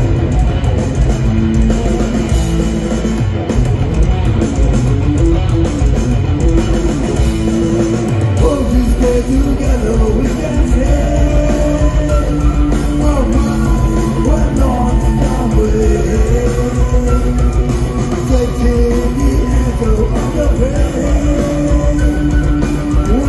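Live metal band playing loudly, with electric guitars, bass and drums, heard from the crowd; a melodic line rises and falls over the band from about eight seconds in.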